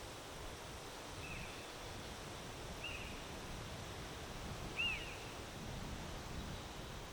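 Wind blowing, with a low rumble, while a bird gives three short high call notes, each a quick rise and fall in pitch, spaced about two seconds apart.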